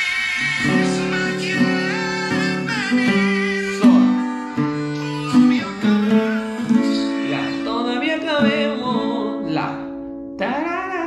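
Yamaha steel-string acoustic guitar strummed through a chord progression, with a singing voice over it.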